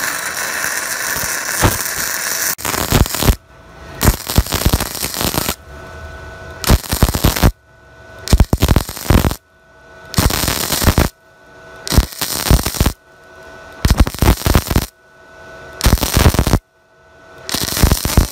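Gasless flux-cored MIG welding arc crackling in short runs of about a second, stopping and restarting about nine times as a corner weld is stitched along square steel tubing; the first run is longer.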